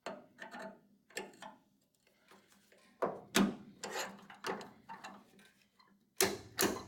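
Repeated short metal taps and clicks from a worn 1969 Dodge Charger factory door hinge as its hinge pin is worked out. The taps are sparse at first and then come about two a second from around three seconds in, growing louder near the end.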